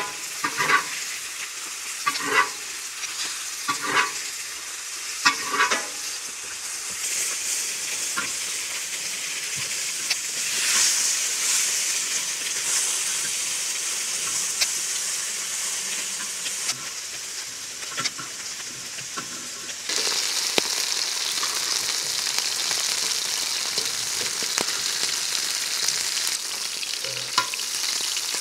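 Pork belly sizzling on a cast-iron cauldron-lid griddle: a steady frying hiss that gets louder about two-thirds of the way through. A few short, sharper sounds come in the first several seconds.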